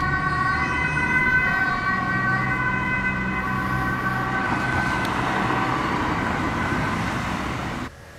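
Dutch ambulance two-tone siren sounding on an urgent run, its alternating tones over road-traffic noise. The siren fades under the traffic noise about halfway through and cuts off suddenly near the end.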